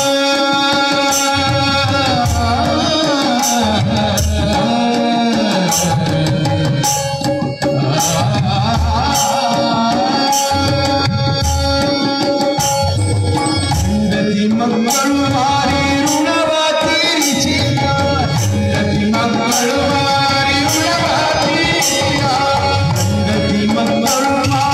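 Live Kannada song: a male singer with tabla and harmonium accompaniment, the tabla keeping a steady rhythm under a held drone, played loud over a PA. The sung line glides up and down, with a brief drop in level about seven seconds in.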